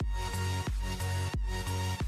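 Background music: electronic music with a heavy bass and sustained synth notes changing in a steady rhythm.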